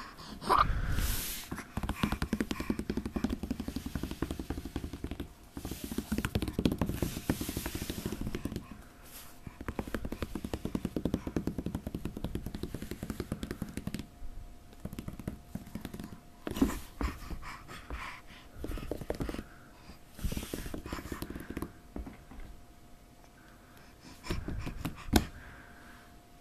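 A baby's breathing, small grunts and short vocal sounds during tummy time, mixed with rubbing and scraping against the foam mat close to the microphone. A faint steady hum sets in about a third of the way through.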